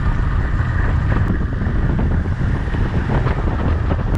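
Wind buffeting the microphone of a bike-mounted action camera while riding a road bike at speed, a steady low rumble.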